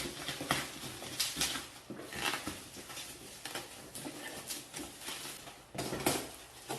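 Packaging wrap being torn and pulled off a parcel by hand: irregular rustling and crinkling with short sharp handling noises throughout.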